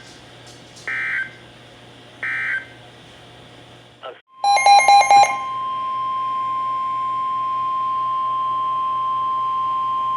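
NOAA Weather Radio alert signalling. First come two short screeching data bursts about a second and a half apart, the end of the SAME end-of-message code. After a brief dropout there is about a second of loud, rapid beeping, the loudest part. Then, about five seconds in, the steady 1050 Hz warning alarm tone starts and holds unbroken.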